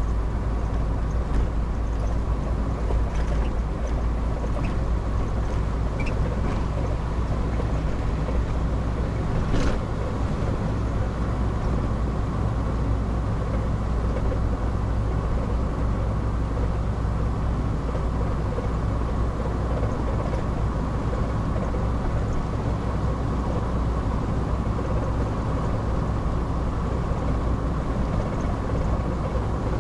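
Steady engine and road noise inside a moving car's cabin, with one brief click about ten seconds in.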